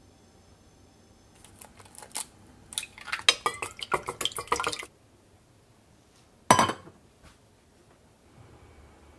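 An egg tapped against a small stainless steel bowl and cracked into it, then beaten quickly in the bowl with rapid clinks of the utensil on the steel for about two seconds. A single loud clunk follows a couple of seconds later.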